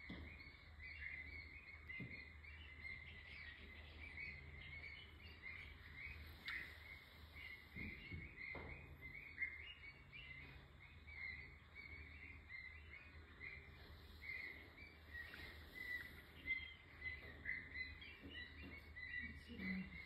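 Faint wetland ambience: many small birds chirping continuously in short, high notes, over a low steady rumble.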